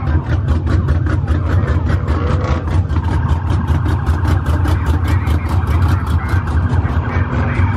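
Car engine running steadily with a deep rumble. A fast, even ticking of about four or five clicks a second runs over it through the middle.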